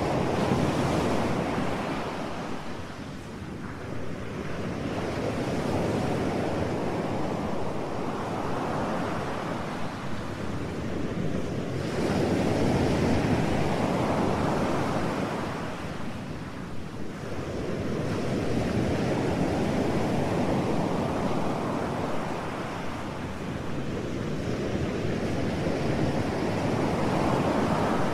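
Rushing surf-like noise of ocean waves, swelling and ebbing in slow surges about every six or seven seconds.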